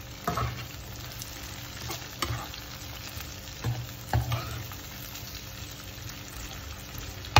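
Diced tomatoes and minced garlic sizzling in butter and oil in a frying pan, with a spatula scraping and knocking against the pan several times as they are stirred.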